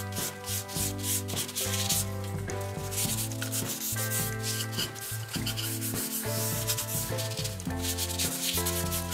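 A cloth wad rubbing oil into plywood in quick repeated scrubbing strokes. Background music with held, slowly changing notes plays underneath.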